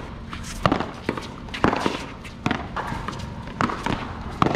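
A paddleball rally: a rubber ball is struck by solid paddles and rebounds off a concrete wall, making a run of sharp cracks at irregular intervals of about half a second to a second.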